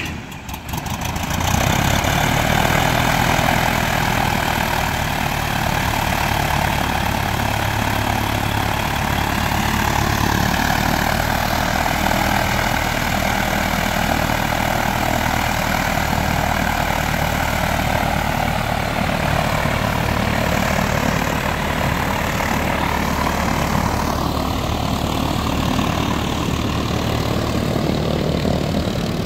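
Piper Cherokee's piston engine idling steadily, its sound coming up about a second in and then holding even.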